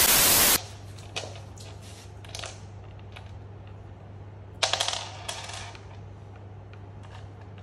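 A loud burst of TV-style static lasting about half a second at the start, then light clicks and taps as a cloth grille is handled and fitted onto the front of a floorstanding speaker, with a quick cluster of clicks about halfway through. A steady low hum runs underneath.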